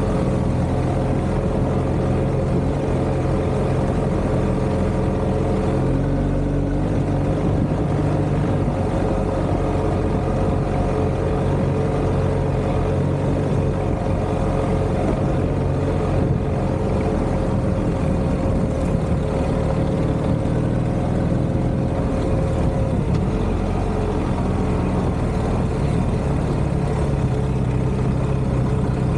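BMW R1250 GS Adventure's boxer-twin engine running at a steady cruise over a dirt track, under a steady rush of noise. The engine note shifts about six seconds in and again about three-quarters of the way through.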